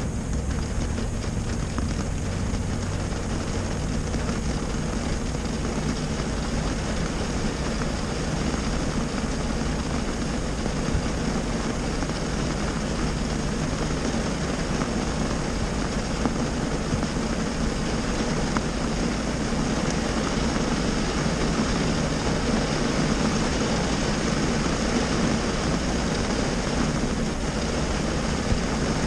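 Rain falling on a car's roof and windshield, heard from inside the cabin as a steady hiss with a low hum underneath.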